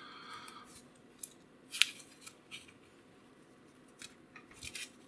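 Small plastic clicks and light scraping as fingers work a mini flashlight's plastic push-button switch and its spring, with one sharper click a little under two seconds in and a few more clicks near the end.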